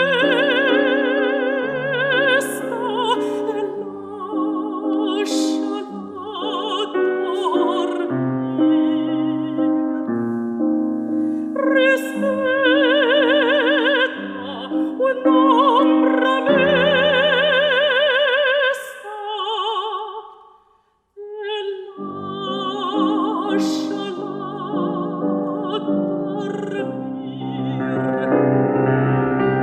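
Chinese art song for classical voice and piano: a singer holds long notes with wide vibrato over piano accompaniment. About two-thirds through, both stop for a moment, then the piano and voice resume.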